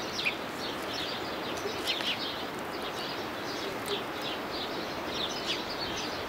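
Small birds chirping and twittering, many short quick calls in irregular succession, over a steady background hiss.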